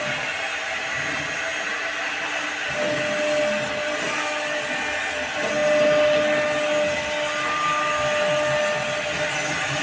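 CNC router spindle running and cutting into HDHMR board: a steady motor noise with a whine that fades out and comes back a few times as the cutting load changes.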